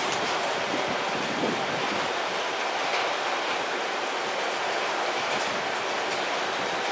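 JR Central 311 series electric train standing at the platform with its pantograph raised, its running equipment giving a steady whirring hiss.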